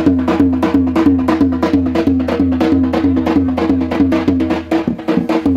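Loud music with a fast, even percussive beat of about five strokes a second, a short dipping melodic figure repeated over and over, and a steady deep bass underneath.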